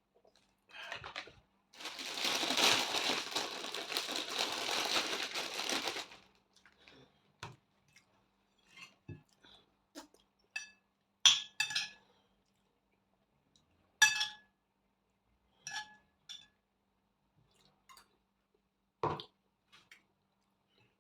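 Cutlery clinking against dishes during a meal: scattered sharp clinks, a few of them ringing briefly, the loudest two near the middle. Before them comes about four seconds of dense rustling noise.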